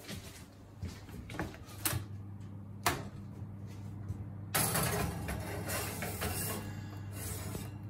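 A plate holding a clootie dumpling being set onto the rack of a hot oven: a few sharp clinks and knocks in the first three seconds, then a few seconds of rushing, scraping noise from about halfway, over the steady low hum of the running oven.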